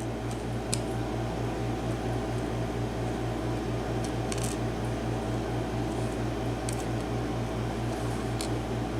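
Steady low hum with a rapid flutter, and a few faint light clicks of small lock parts and pins being handled while the lock is taken apart.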